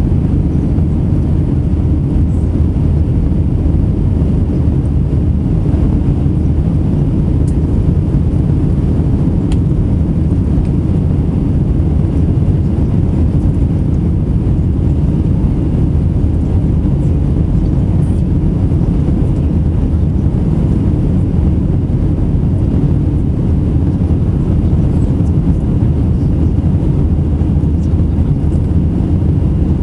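Steady low roar of jet engines and rushing air inside the cabin of an Airbus A320-family airliner climbing after takeoff.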